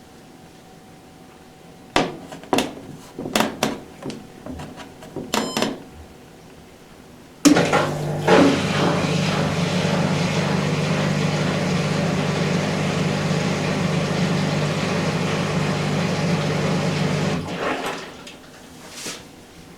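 Candy Smart Inverter front-loading washing machine: a few sharp clicks, then a steady rushing noise with a low hum starts abruptly and runs for about ten seconds before stopping, followed by one more click.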